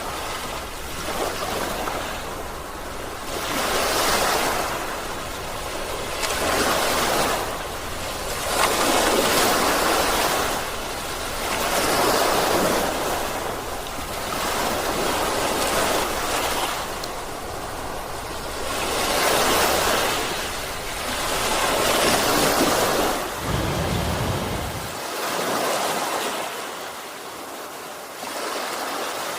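Sea waves washing in, the surf swelling and fading every three to four seconds. A low rumble underneath cuts off suddenly near the end.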